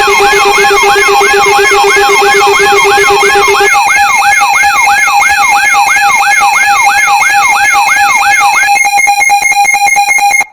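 Loud synthesized emergency-alert alarm: a siren tone sweeping up and down about three times a second over several steady droning tones. A low tone drops out about a third of the way through, and near the end the sweeping stops, leaving only fast-pulsing steady tones before the sound cuts off abruptly.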